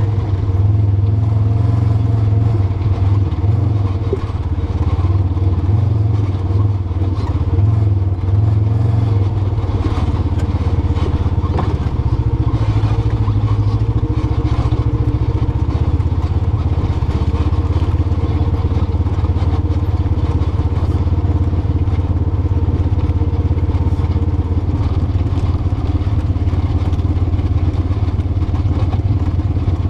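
ATV engine running steadily as it drives a rough dirt trail, heard up close from the vehicle itself, with light clatter from the machine bouncing over rocks. The engine note settles into a more even drone about ten seconds in.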